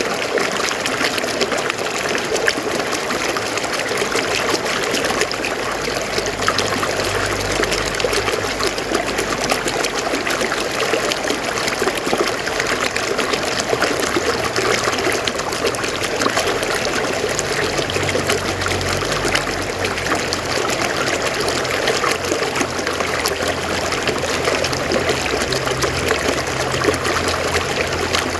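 River water running over rocks: a steady rushing babble full of small splashes, with a low rumble that swells and fades now and then.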